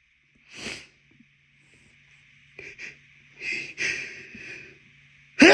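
A man's sneeze building up: short sniffs and noisy, catching inhales through a tickling nose. A loud sneeze breaks out right at the end.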